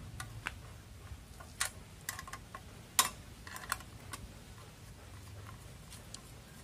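Scattered light metallic clicks and clinks as a license plate bolt is worked loose by hand, with a ring spanner and the plate knocking against a motorcycle's steel rear rack. The sharpest click comes about three seconds in.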